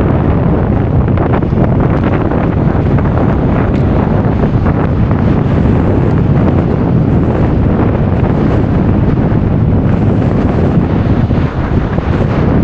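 Loud, steady wind buffeting the microphone on a beach, a dense low rumble that masks most other sound.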